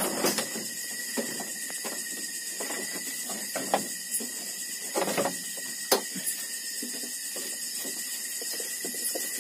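A steady high hiss with a thin continuous tone under it, broken by scattered light knocks and clicks, with one sharp click about six seconds in.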